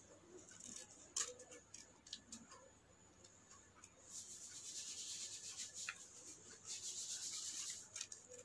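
Scissors cutting thin craft paper, faint: a few light clicks, then two longer cuts, one about four seconds in and one near seven seconds.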